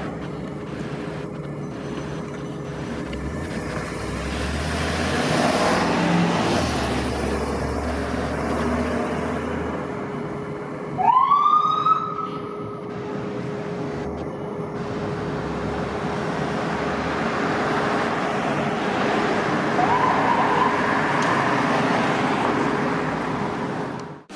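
Ambulance engine running and moving off amid street traffic. About eleven seconds in, its siren gives one loud rising whoop that cuts off within a second, and a fainter short rising whoop comes near twenty seconds.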